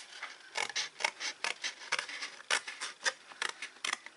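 Scissors snipping through white card in a quick, irregular run of short cuts, about four snips a second, cutting a strip out along the fold lines.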